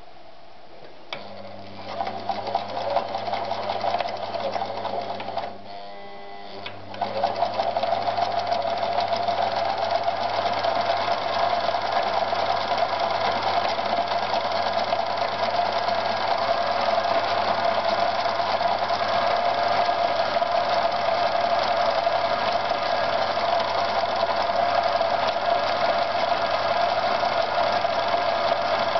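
Privileg TopStar 796 Super Automatic electric sewing machine running and stitching denim. It starts about a second in, stops briefly near six seconds, then runs steadily.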